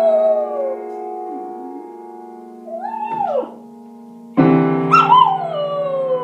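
A dog howling along to piano chords. The chords are held, with a new chord struck about four seconds in. The howls fall in pitch: a short one about three seconds in, then a long one just after the new chord.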